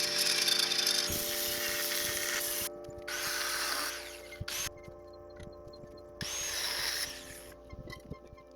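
Handheld power tool cutting into a metal plate in three bursts of a second or two each, with short quieter gaps between them.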